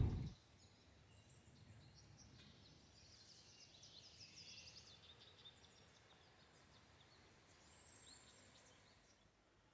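Faint songbird calls in a quiet outdoor setting: a rapid high trill through the middle, then a single short high whistled note near the end.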